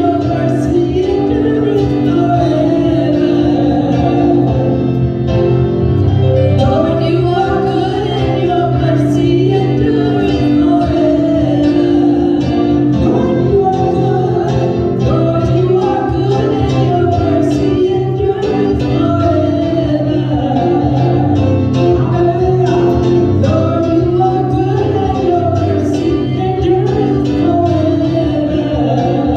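Gospel worship music: singing over a steady instrumental backing with bass and keyboard.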